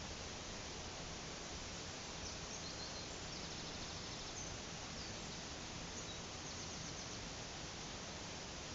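Steady rush of flowing brook water and a waterfall, with a few faint high bird chirps and a quick trill in the middle.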